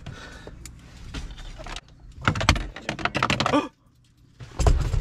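Handling noises inside a car as dashboard parts are worked on: a quick run of rattling clicks about two seconds in, then a dull thump near the end.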